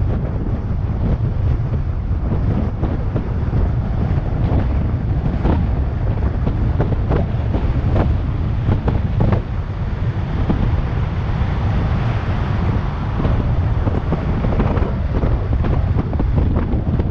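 Wind buffeting an action camera's microphone on a fast downhill bike descent, a heavy low rumble, with irregular knocks and rattles from the bike over the road.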